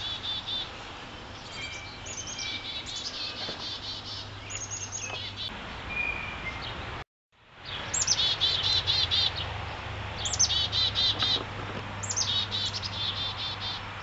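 Black-capped chickadees calling over and over: each call a high slurred note followed by a quick run of repeated buzzy notes, typical chick-a-dee-dee-dee calls, over a steady low hum. The sound cuts out completely for a moment about halfway through.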